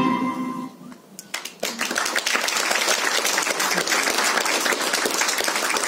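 Music fading out in the first second, then after a brief pause an audience applauding, the clapping starting about a second and a half in and going on steadily.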